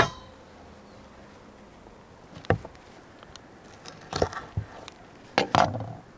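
Kitchen knife striking a wooden cutting board while cutting up raw chicken: scattered sharp knocks, the first with a brief metallic ring and the loudest two coming close together near the end.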